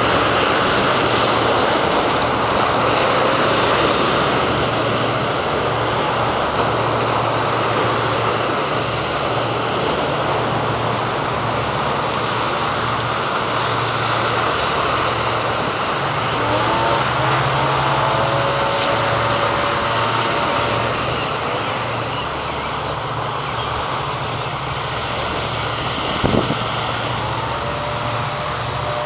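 Small waves breaking and washing up on a sandy beach: a steady rush of surf with a low rumble underneath. A few faint short tones come in past the halfway point, and there is a single sharp knock near the end.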